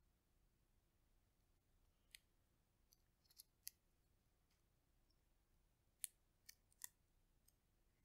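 Roasted chestnut shell crackling and snapping as fingers peel it away. The crackles are quiet and sparse: a few from about two to four seconds in, and a sharper cluster around six to seven seconds in.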